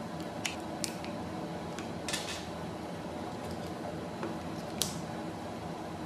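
Hard plastic holster parts being handled and fitted together: a few light clicks and a brief scrape about two seconds in, over a steady background hum.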